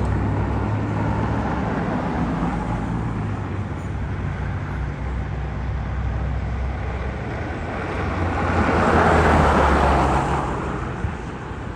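Heavy fire truck engine running with a steady low drone, as the apparatus moves off. A vehicle's noise swells close by about eight seconds in, then fades near the end.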